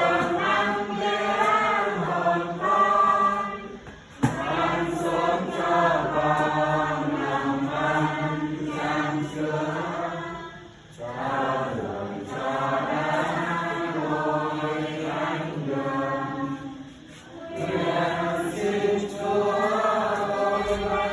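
A group of voices chanting prayers together in unison, in long phrases with short breaks about every six or seven seconds.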